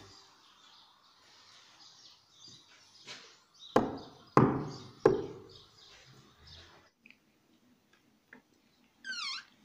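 Three heavy knocks on a wooden door, about two-thirds of a second apart, each with a short boomy ring. Near the end a brief high chirping squeak follows.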